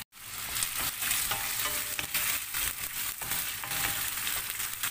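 Chicken pieces frying in hot oil with onion and garlic in a wok: a steady sizzle, with a wooden spatula stirring and scraping the pieces around the pan.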